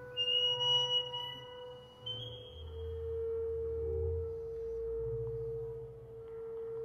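Double bass bowed in sustained, pure-sounding harmonics: a steady held note, with a thin high whistling tone over it for the first two seconds.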